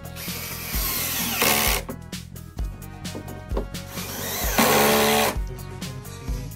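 Cordless drill driving screws into a molded-plastic bed panel, in two runs of about a second and a half each: one near the start and one about four seconds in. Background music plays throughout.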